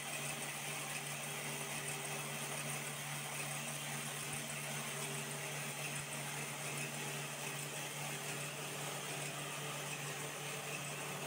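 Tyre buffing machine running steadily, the old tyre spinning against the rotating rasp as the worn tread rubber is buffed off for retreading. A constant low hum under an even hiss, with no change.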